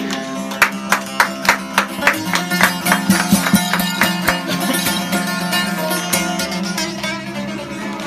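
Instrumental passage of a Turkish folk song: a plucked string instrument plays a run of sharp, evenly spaced notes, about three a second, over a steady low drone.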